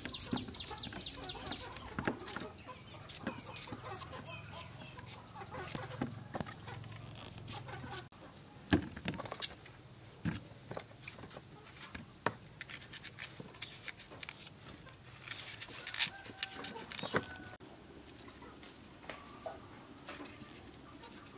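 Kitchen knife chopping long beans and cucumber on a wooden cutting board: a quick run of chops at the start, then scattered single cuts. Chickens cluck in the background.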